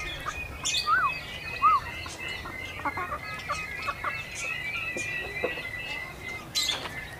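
A chorus of many small aviary birds chirping over one another, with a steady high trill beneath. About a second in come two short arched calls, one after the other.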